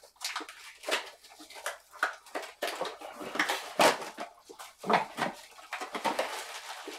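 Crinkling, rustling and tearing of small cardboard mystery-figure boxes and the foil bags inside as two people open them by hand, a run of irregular crackles with a few louder rips.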